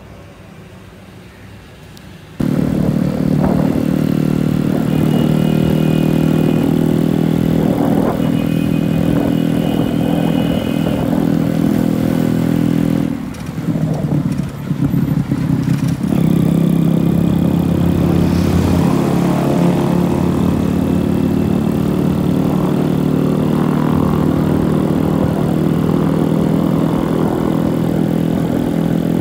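Motorcycle engine running as the bike is ridden, heard from the rider's seat. After a quieter first two seconds the engine sound comes in suddenly, dips briefly about halfway through, then runs steady.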